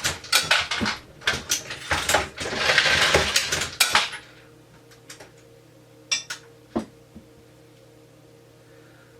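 Loud metallic clatter of brass cases and cartridges on a progressive reloading press with its case and bullet feeders, dense with sharp clicks. It stops abruptly about four seconds in, leaving a faint steady motor hum and a few single clicks.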